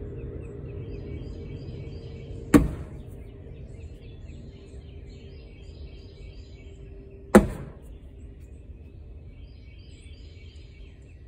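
A Razor Podium cornhole bag lands on a wooden cornhole board twice, about five seconds apart, each landing a sharp thud. Birds chirp faintly in the background.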